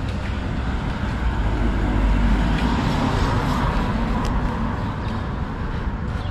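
A car driving past on the street, its engine and tyre noise swelling a couple of seconds in and then fading as it moves away.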